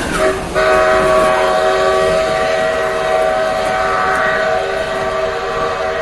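A locomotive at the head of the train sounds a long multi-note warning signal, broken briefly near the start and ending near the end, over the rumble of passenger coaches rolling past.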